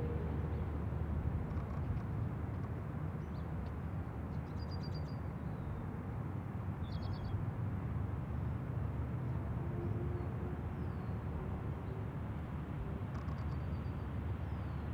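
Steady low rumble of a taxiing Southwest Airlines jetliner's engines, with a few short, high bird chirps scattered through.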